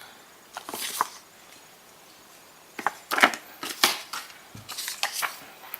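Camera box paperwork and packing being handled: a couple of brief rustles about a second in, then a run of crinkles and small taps in the second half.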